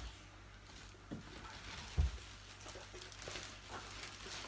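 Handling noise from the vacuum cleaner's parts being picked up and moved: a few light knocks and clicks, with one sharper thump about two seconds in.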